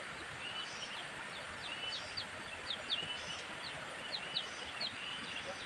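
Birds chirping in short, quick, high notes from about two seconds in, over a steady outdoor hiss.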